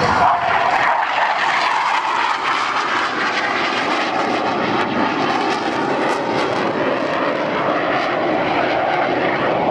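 Blue Angels F/A-18 Hornet's twin turbofan jet engines as the jet flies past and climbs away: loud, steady jet noise.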